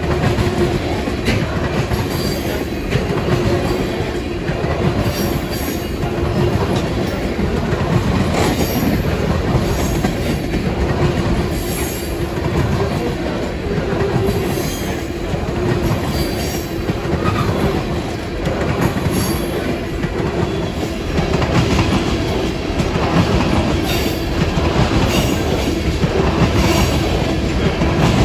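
Empty tank cars of a freight train rolling past at close range: a steady rumble of steel wheels with repeated clicks over the rail joints and a faint, steady wheel squeal.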